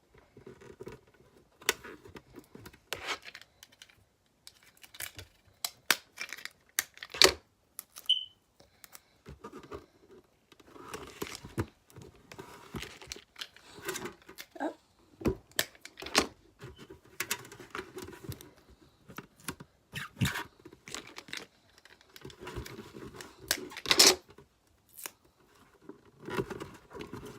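Adhesive tape being pulled and torn while plastic parts of a toy volcano kit are handled: scattered clicks, taps and crinkles, with a brief squeak about eight seconds in.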